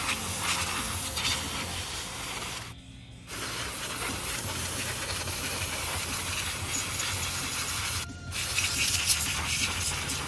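Aerosol can of CRC QD electronic cleaner spraying onto a stripped PC power supply's circuit board and heat sinks: a steady hiss in three long bursts, with a short pause about three seconds in and a brief one about eight seconds in.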